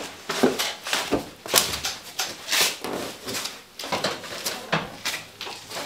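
Footsteps, about two a second, with a long cardboard box scuffing and bumping as it is carried.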